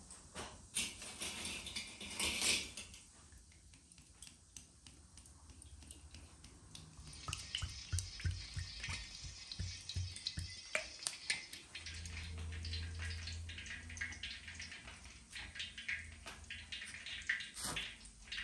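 Cooking oil poured in a stream into a metal wok, trickling and splashing, with scattered light knocks and clinks of kitchen work.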